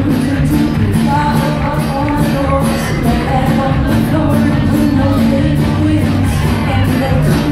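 Live band playing at full volume, with drums and a woman singing lead, heard from the audience in a large concert hall.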